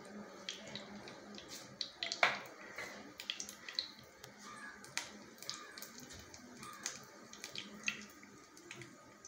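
Mustard seeds crackling in hot oil in a kadai: scattered, irregular sharp pops over a faint sizzle as the seeds begin to splutter, the tempering stage.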